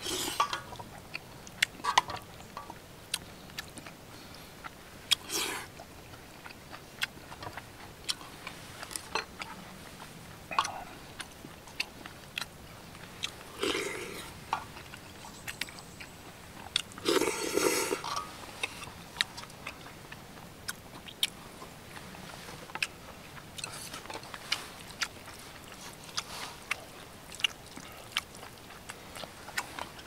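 Close-miked eating of doenjang noodle soup: chewing with frequent sharp clicks and smacks, broken by a few longer, noisy, second-long sounds that are most likely noodles being slurped.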